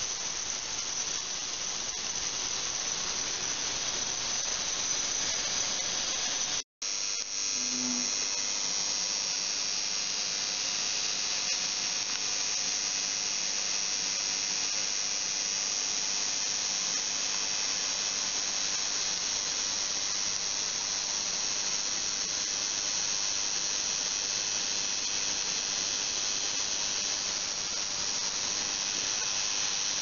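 Ultrasonic cleaning tank with flowing, overflowing water running: a steady, high-pitched hiss and whine from the cavitating water. It drops out for a moment about seven seconds in, then carries on unchanged.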